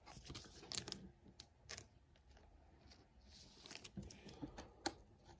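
Faint scattered clicks and soft plastic rustling of a trading card being handled and slid into a plastic sleeve and a rigid top loader.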